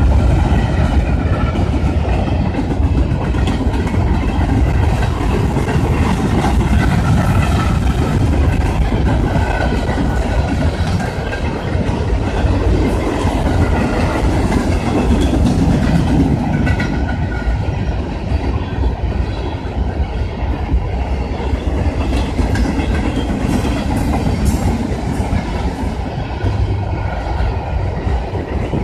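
CSX freight train of tank cars, boxcars and covered hoppers rolling past: a steady rumble of steel wheels on rail, with the clickety-clack of wheel sets over rail joints and a faint, wavering high squeal.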